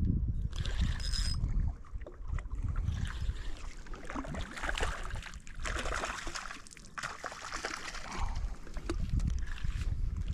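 Water lapping and splashing at the lake edge, with gusts of wind rumbling on the microphone around the start and again near the end.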